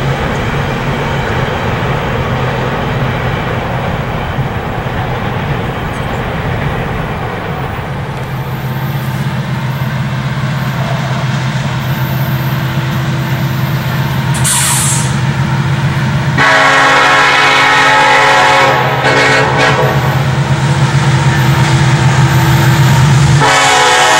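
A diesel freight train rumbling along the tracks, then a CSX diesel locomotive's engine running as it approaches, and its multi-chime air horn sounding long blasts for a grade crossing: one of about two and a half seconds, a longer one of about four, and the start of a third near the end.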